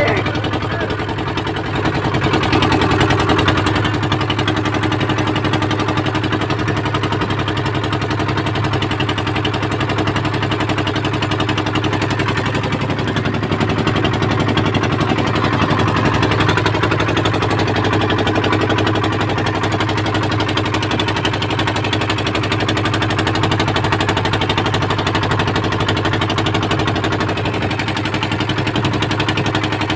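A small wooden boat's engine running steadily at an even speed.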